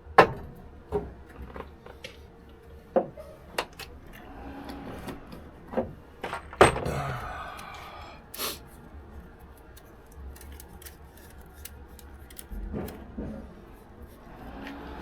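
Scattered clicks, knocks and rubbing as tools and copper plumbing parts are handled and set in place, a dozen or so sharp taps spread irregularly over the stretch.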